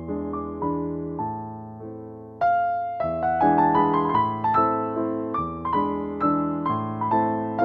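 Background piano music: single struck notes and chords that ring and fade, a brief lull about two and a half seconds in, then louder playing.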